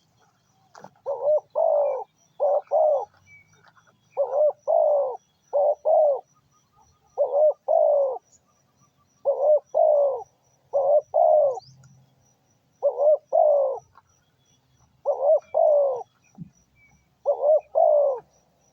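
A dove cooing over and over: about ten short phrases of two or three arched coos, one every two seconds or so. It is a trained decoy bird calling to lure wild birds.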